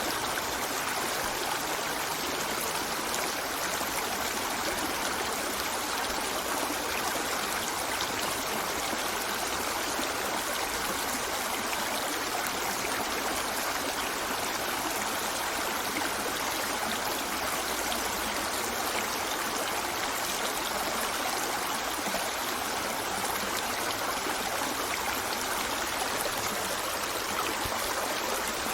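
A river's current rushing steadily over stones, a constant even wash of flowing water.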